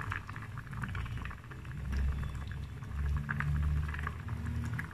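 Milk and rice simmering in a steel pot on a gas burner: faint, steady bubbling over a low rumble. The rice is almost cooked through.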